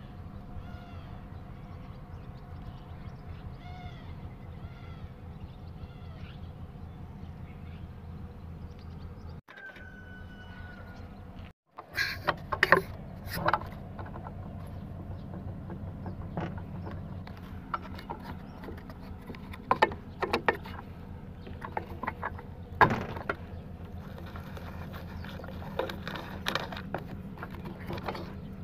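Metal engine parts and tools clicking and knocking against each other as a Honda Dio scooter engine is taken apart by hand, over a steady low hum. The clicks start about a third of the way in and come irregularly, some of them sharp.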